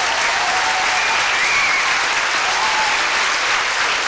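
Audience clapping steadily, a sustained round of applause.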